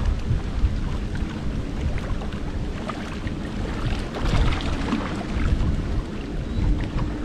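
Wind rumbling on the microphone at the water's edge, with faint scattered ticks and a faint steady hum that comes in about five seconds in.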